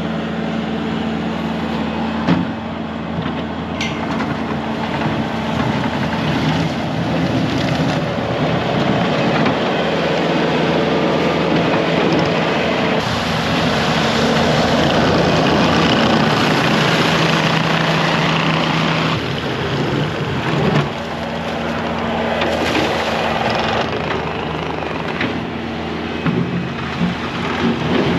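Loader engine running steadily as it works clearing snow, its note shifting and the noise swelling as it takes on load, with a sharp clank about two seconds in.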